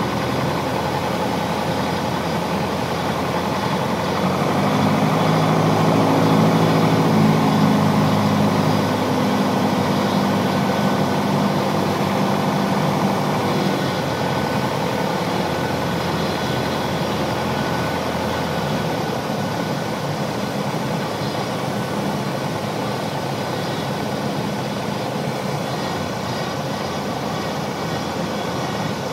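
Piper PA-28's piston engine and propeller droning steadily, heard inside the cabin on landing approach. The engine note swells about four seconds in and eases back by about fourteen seconds.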